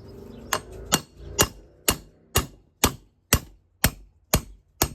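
Hammer tapping the old crankshaft bearing and seal out of a Honda AF16 scooter engine's crankcase: sharp, evenly spaced metallic strikes, about two a second.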